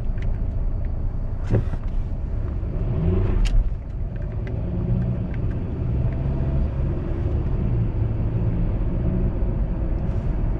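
Car driving, heard from inside the cabin: a steady low rumble of engine and road noise. About three seconds in, the engine note rises briefly as the car accelerates. A couple of sharp clicks come before and during the rise.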